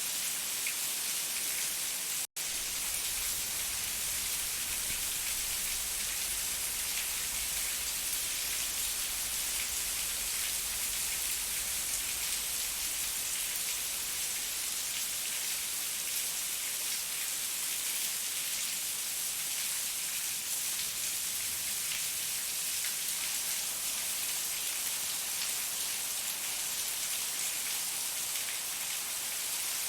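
Steady rain falling, an even hiss of many drops with fine patter, cut off for an instant about two seconds in; a low rumble sits under the rain for several seconds after the break.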